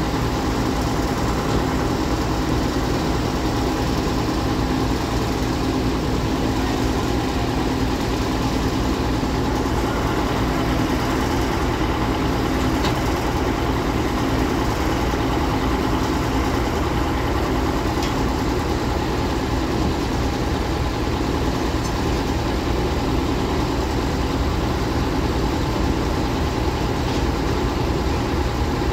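Water well drilling rig's engine running steadily at an unchanging speed while the rig's mast is being raised upright.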